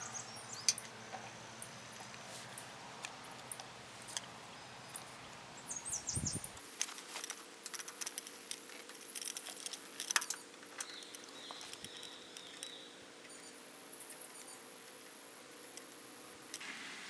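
Hand-lever grease gun being worked on the grease fittings of an old hay rake: scattered light metallic clicks and rattles, with a low bump about six seconds in.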